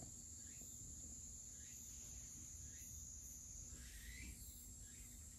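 Quiet ambience through an open door: a steady high-pitched whine with a low rumble beneath, and several faint bird chirps, the clearest about four seconds in.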